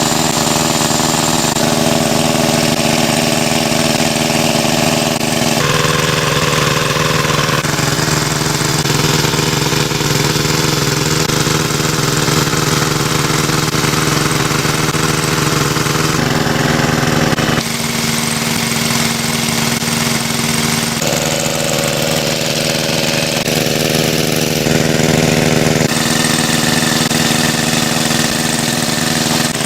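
Engine-driven water pump running steadily with a constant hum; its tone changes abruptly several times.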